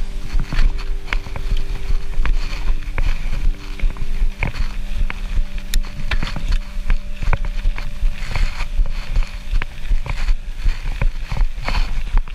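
Mountain bike riding down a bike-park trail, with a steady low rumble of wind on the action camera's microphone and many sharp clacks as the bike rattles over bumps. A steady hum in the background changes pitch about four seconds in.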